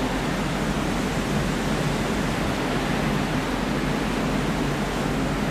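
Steady rushing noise of wind and sea heard aboard a moving ship, with a low hum underneath.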